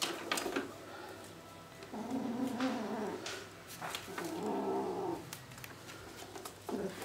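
A cat gives two drawn-out low yowls, each about a second long, with light knocks and scuffles from play with a sock.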